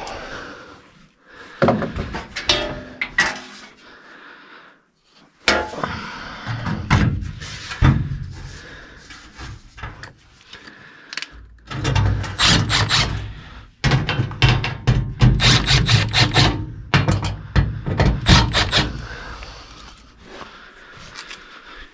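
Sheet-metal furnace access panel being handled and fitted back on: irregular rubbing, scraping and knocking, with a dense run of rattling knocks in the second half.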